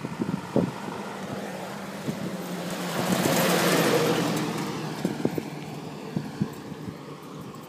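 A small utility truck overtaking close by: its engine grows louder, is loudest about three to four seconds in as it passes, then fades as it pulls away ahead. A few sharp knocks sound now and then.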